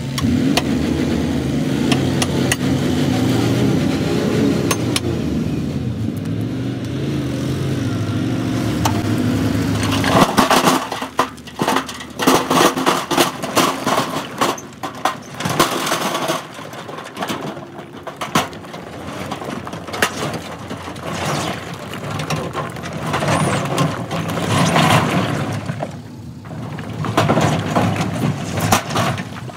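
Dump truck engine running while its hydraulic hoist raises the loaded bed. From about ten seconds in, large rocks and soil slide out of the tipped bed, crashing and clattering onto the ground in many irregular impacts.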